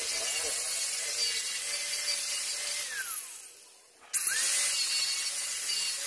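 Angle grinder with a red abrasive disc grinding rust off a steel scissor jack's arms. It winds down about three seconds in and starts again just after four seconds, spinning back up with a rising whine.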